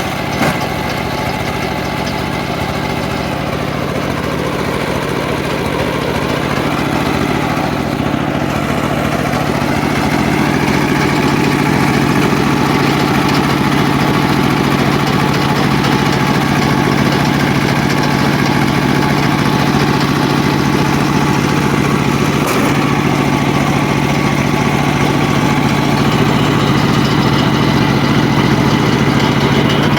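Home-built circular sawmill running steadily. Its loudness builds over the first ten seconds, then holds.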